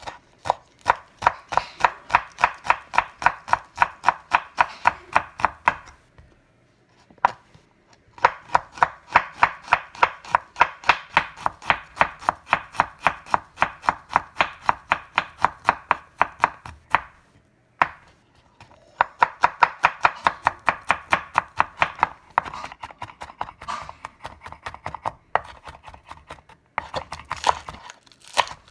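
Chef's knife chopping garlic on a wooden cutting board, quick even strokes about five a second, in runs of several seconds with short pauses. Near the end it is chopping scallions.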